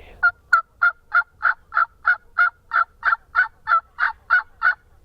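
A loud, even run of about fifteen turkey yelps, roughly three a second, each note a short pitched call.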